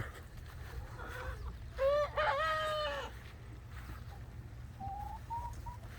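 A rooster crowing once, about two seconds in, one drawn-out call that rises, holds and falls away over about a second. Softer chicken calls come before and after it.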